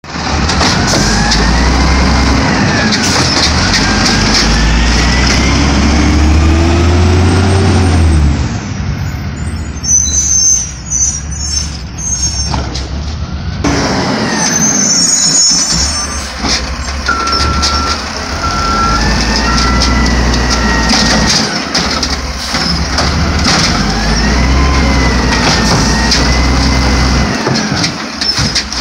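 Diesel engine of an L.A. Sanitation automated side-loader garbage truck revving up and down as its hydraulic arm lifts and dumps carts, with a whine that rises and falls in pitch in each cycle. A short run of beeps sounds about midway.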